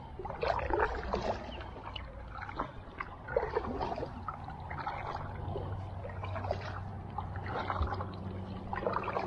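Double-bladed kayak paddle stroking through calm water, with splashes and dripping off the blades coming in irregular bursts every second or so, over a faint steady low hum.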